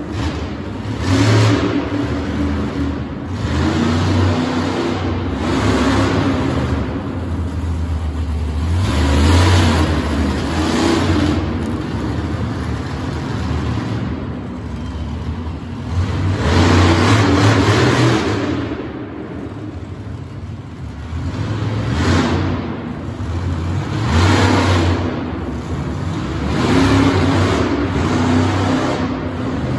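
Monster truck engine revving in repeated surges, rising and falling every second or two, with longer, louder bursts about nine and seventeen seconds in.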